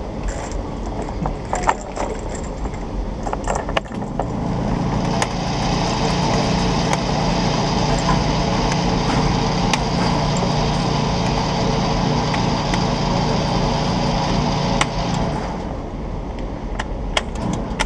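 An engine running steadily, setting in about four seconds in and fading out about two seconds before the end, with scattered light clicks and knocks.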